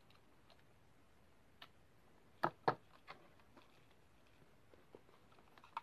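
Plastic power adapter and USB cable being handled and set down on a wooden desk: a few light clicks and knocks, with two louder ones close together about two and a half seconds in.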